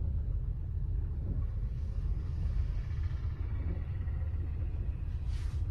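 Steady low rumble of vehicles idling and creeping through floodwater, with a short hiss about five seconds in.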